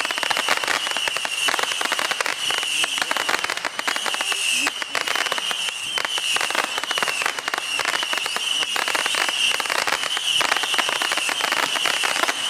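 Consumer fireworks going off in quick succession: a dense, continuous crackling and popping, with a steady high-pitched tone running underneath.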